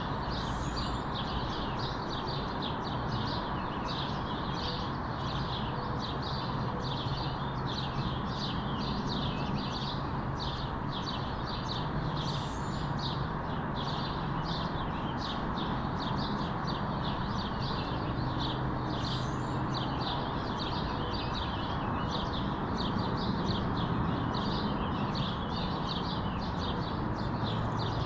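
Many small birds chirping rapidly and continuously, several chirps a second, over a steady background hum of distant traffic.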